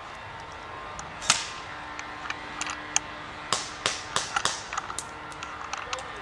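Airsoft guns firing: an irregular scatter of sharp snaps. The loudest comes about a second in, and a cluster of strong shots follows between about three and a half and five seconds in.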